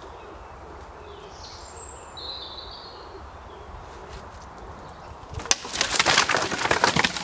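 A stick roof frame collapses about five and a half seconds in: a pile of wooden branches cracking and clattering down onto a brick wall in a rapid run of knocks, after a supporting stick gave way under the weight. Earlier a bird chirps briefly.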